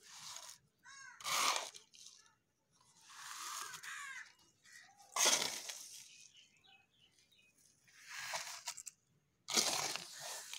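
Loose potting soil being scooped and poured into a terracotta pot with a scoop cut from a plastic bottle, in about six separate pours.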